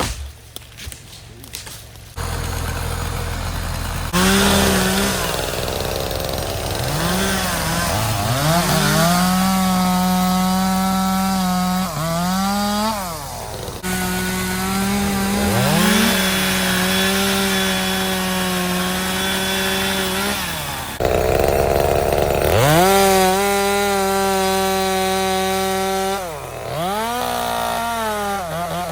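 A gasoline chainsaw cutting into pine. It idles briefly, then is held at full throttle, and its pitch sinks and climbs again each of several times the throttle is eased and squeezed.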